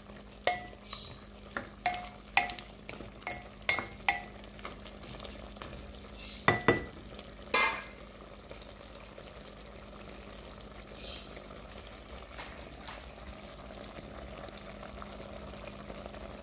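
A wooden spatula stirs chicken pieces in a glass pot, knocking against the pot with about a dozen short ringing taps over the first eight seconds. Underneath, the chicken sizzles steadily as it sears in its own juices to bring out its flavour.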